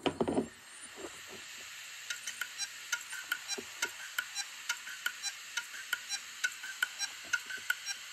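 Opened 2003 Hitachi Deskstar hard drive spinning up with a steady whir after power is connected. From about two seconds in, its head actuator clicks about three times a second: the "click of death" of a failing drive whose heads cannot read.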